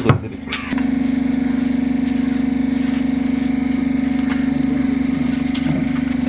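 A steady, even machine hum, like a small engine or motor running, that gets louder about a second in. A couple of sharp knocks or scrapes come right at the start.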